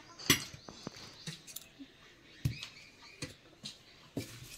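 Scattered light clicks and taps of stainless steel plates, bowl and serving spoon being handled at a meal table. The loudest comes about a third of a second in, and about half a dozen fainter ones follow at irregular intervals.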